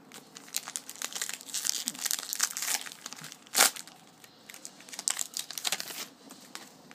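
Foil-style wrapper of a trading card pack being torn open and crinkled by hand, a run of sharp crackles with one loud snap about three and a half seconds in.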